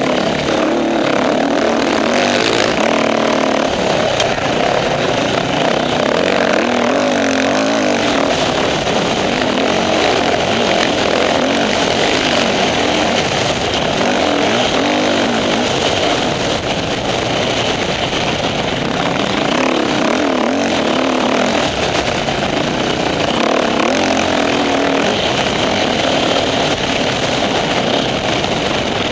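Enduro dirt bike engine running under load on off-road trails, its pitch rising and falling continuously as the throttle is opened and closed.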